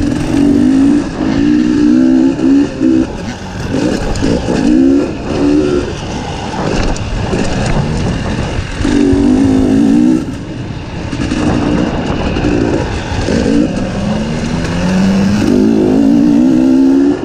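Dirt bike engine revving up and easing off again and again, its pitch climbing with each burst of throttle, with a long climb near the end.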